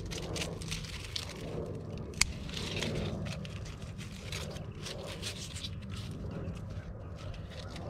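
Tomato plant foliage rustling and crackling as a hand works through the leaves and stems, with one sharp snap about two seconds in, over a steady low rumble.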